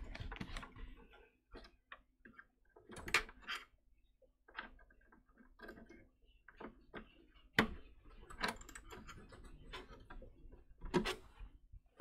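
Scattered small clicks, scrapes and taps of a 16 GB DDR4 memory module being worked into its slot inside a QNAP NAS chassis. Sharper clicks come about three seconds in, near eight seconds and near eleven seconds.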